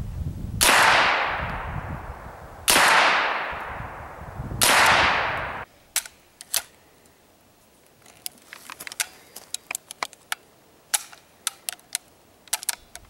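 Three single shots from a 9mm IMI Uzi, about two seconds apart, each trailing off in a long echo. The echo stops abruptly, and quiet metal clicks follow as the gun is handled.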